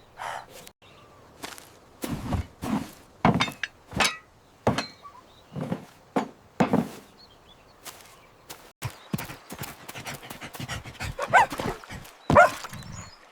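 Cartoon sound effects: a dog panting and barking among a run of short thuds and knocks, with two short rising yelps near the end.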